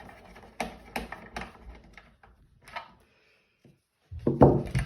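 Scattered clicks and knocks of a nail gun's plastic housing being handled while its case screw is undone with a Torx driver, then a brief gap and a louder clatter of handling near the end.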